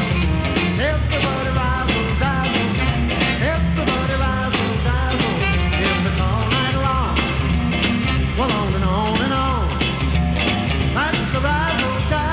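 Upbeat 1950s-style rock and roll music, an instrumental stretch with a bending lead melody over a steady bass and beat.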